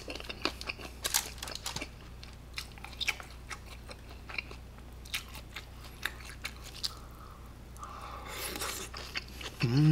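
Close-miked chewing of grilled pork belly, with many short wet mouth clicks and crunches. A breath comes about eight seconds in, and a short hummed "mm" at the very end.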